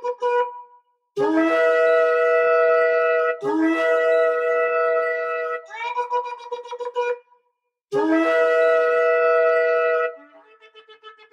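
Shofar blown in a series of long blasts with short pauses between, each starting low and jumping up to a held note. A wavering, fluttering stretch comes in the middle and a fainter one near the end.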